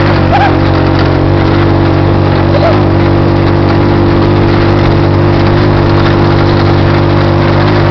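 Go-kart's small engine running loud and steady at a constant speed while the kart is being driven.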